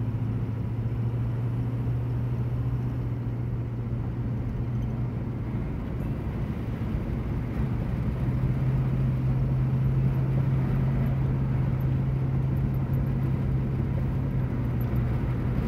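A car driving on a mountain highway: a steady low engine drone over tyre and road noise, the drone stepping up a little in pitch about halfway through.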